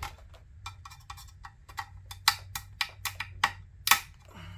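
Flat-blade screwdriver tip clicking and scraping against the metal spring clips that hold the MOSFETs to the chassis of a power-supply board as it is worked in to pry them off: an irregular series of sharp ticks, over a faint steady low hum.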